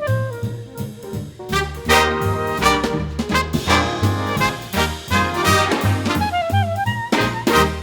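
Swing-style jazz band: brass and saxophone over a walking bass line with a steady beat, growing fuller about a second and a half in.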